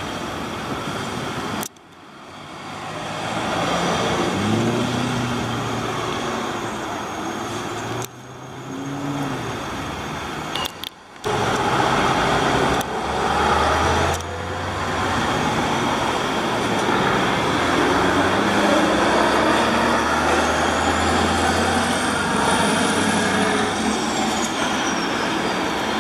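City road traffic dominated by heavy diesel engines, heard in several short shots with abrupt cuts between them; the engine notes rise as vehicles accelerate. Through the second half a Scania truck tractor hauling a loaded tipper semi-trailer pulls away and passes, its diesel engine running with a deep steady drone.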